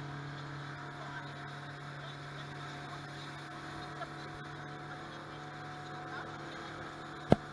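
Motorboat engine running with a steady hum, under a wash of wind and water noise. One sharp knock comes shortly before the end.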